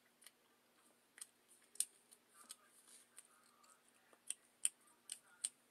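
Fingers tapping and handling a smartphone close to its microphone: about ten light, irregular clicks and taps with soft rustling between them.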